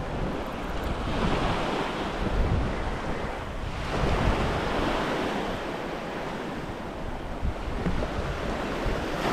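Small waves washing up onto a sandy beach in swelling surges, with wind buffeting the microphone.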